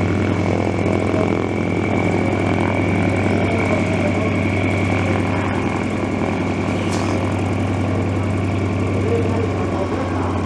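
Sukhoi Su-26M's nine-cylinder radial engine running at low power while the aircraft taxis. It makes a steady, even drone with a constant high whine over it.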